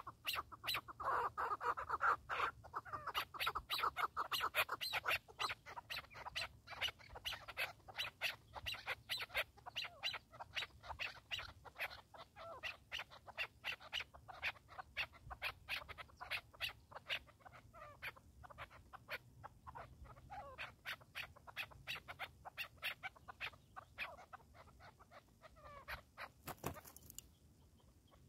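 Chukar partridges calling: a long run of quick, sharp chuck notes, several a second, loudest in the first few seconds and thinning out later. About 27 seconds in there is one sudden loud crack and the calling stops.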